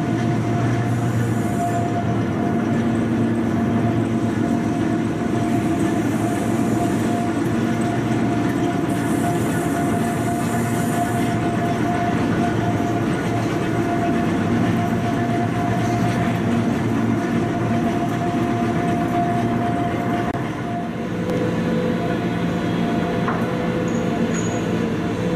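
A train running steadily, a continuous rumble with a steady whine over it. The whine's pitch changes about 21 seconds in.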